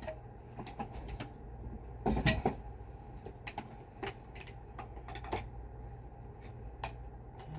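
Scattered clicks and knocks from the plastic parts and cord of a vintage Hoover canister vacuum being handled, with a louder run of knocks about two seconds in.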